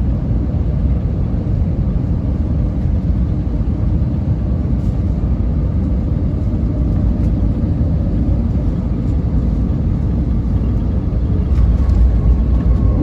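Airbus A320neo cabin on the ground after landing: a steady, loud low rumble of engines and rolling gear, with faint steady hums above it. It swells louder about a second before the end.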